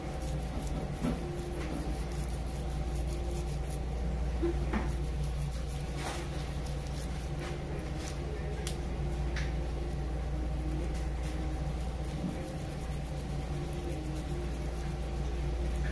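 A steady low machine hum, with faint scrapes and scattered light ticks from a long knife slicing flat under the scales of an Asian sheepshead wrasse (kobudai) to peel them off in a sheet (sukibiki scaling).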